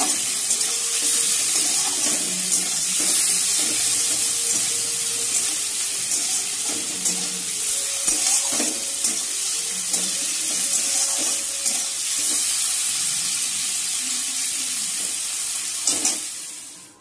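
Small prawns frying in a little oil in a metal kadai: a steady sizzle, with a metal spatula scraping and tapping the pan now and then. The sizzle fades out just before the end.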